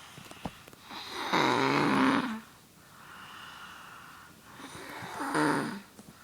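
A sleeping boy snoring loudly: two long snores, the first about a second in and the second about five seconds in, with a fainter breath between them.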